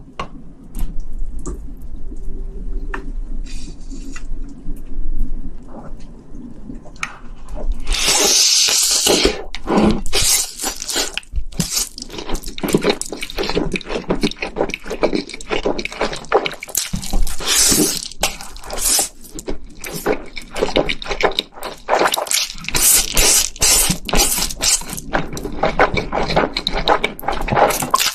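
Close-miked wet mouth sounds of a person slurping and chewing spicy stir-fried noodles. For the first several seconds there are only faint, scattered clicks. About eight seconds in, loud, dense slurping and smacking starts and carries on.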